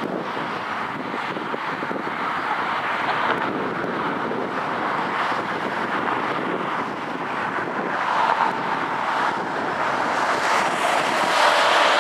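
Fireworks display heard from a distance: overlapping bursts and crackle blending into a steady rushing noise, with wind on the microphone.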